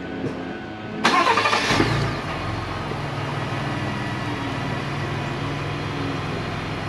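A 2020 Gen 2 Ford Raptor's twin-turbo 3.5-litre EcoBoost V6 is started about a second in. It flares briefly, then settles into a steady idle.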